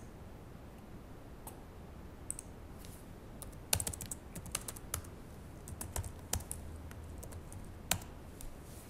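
Typing on a computer keyboard: a few isolated key clicks at first, then a quicker run of keystrokes from about a third of the way in, lasting almost to the end.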